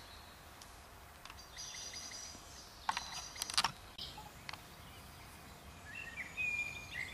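Faint outdoor evening ambience with birds calling: a short high chirping passage early on and a whistled call near the end, with two sharp clicks a little under a second apart in the middle.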